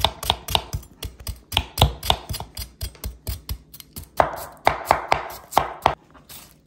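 Santoku knife slicing a peeled Chinese yam on a wooden cutting board: a quick, even series of knife strikes on the board, several a second.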